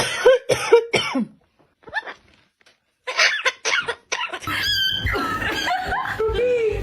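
Parrot making short, cough-like calls: a few in the first second and another run about three seconds in. Background music with a steady beat comes in about four and a half seconds in.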